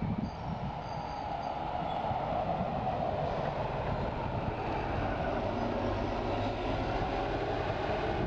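Moving bus: a steady rumble of engine and road noise with no clear changes.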